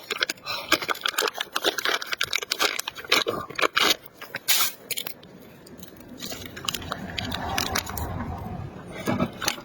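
Plastic packaging of a hot pot soup base crinkling and being torn open: a dense run of sharp crackles for about four seconds and one loud rip, then quieter, lower rustling.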